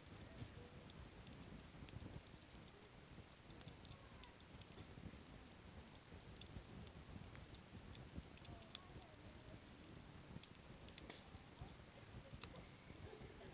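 Softwood campfire burning, with faint irregular crackles and pops from the logs over a low rustle of flame and light wind.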